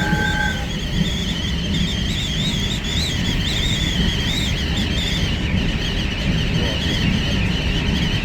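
A moving train heard at the window: a steady low running rumble under a constant, wavering high-pitched whistle. A separate steady tone stops within the first second.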